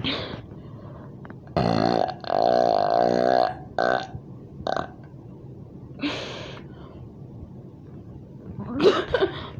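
A person burping: a long, drawn-out belch starts about a second and a half in and lasts about two seconds, followed by several shorter, breathier burps.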